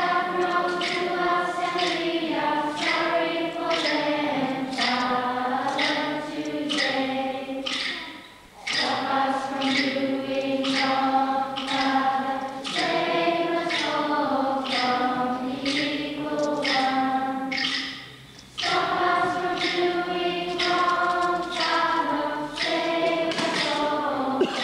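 A group of schoolchildren singing together as a choir, holding sung notes, with two short breaks between phrases.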